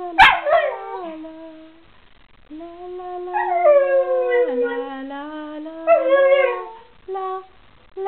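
Parson Russell Terrier howling in long, wavering notes along with a woman's sung notes, in several drawn-out stretches with short pauses. A sharp click comes just after the start.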